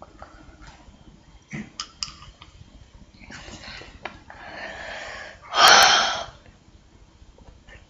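A boy breathing out hard through his open mouth, building to one loud gasping exhale about six seconds in, from the burn of the very hot raw ginger he is eating. A few sharp mouth clicks come about a second and a half in.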